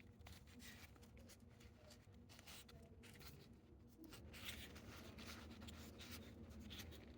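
Faint, irregular rubbing strokes of finish being applied to a small carved wooden figurine.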